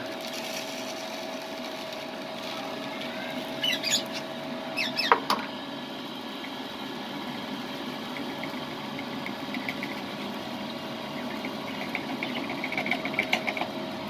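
Small electric fan in a homemade bird-seed winnowing box running with a steady hum while seed is poured through its funnel. A couple of short chirps cut through about four and five seconds in.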